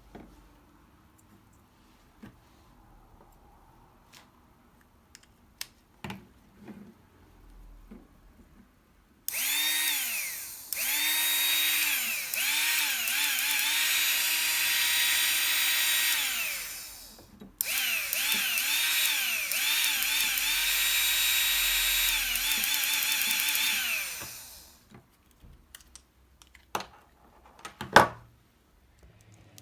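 Small cordless power-tool motor run in two long spells, its pitch repeatedly rising and falling as the trigger is eased on and off. Scattered clicks and handling knocks come before and after, with one sharp knock near the end.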